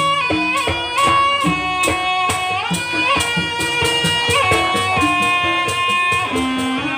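Traditional Javanese jaranan music: a high melody line of held notes that slide up and down between pitches, over a steady beat of quick drum strokes.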